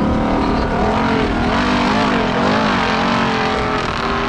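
Formula Offroad car's engine running at high revs under full load up a steep sand hill, its pitch swinging up and down as the revs rise and fall.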